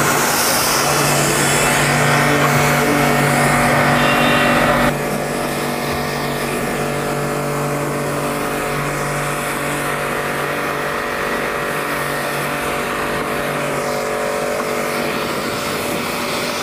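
Pressure washer running steadily, its motor humming under the hiss of the water jet on a car's bodywork. About five seconds in, the sound drops suddenly to a slightly quieter but still steady run.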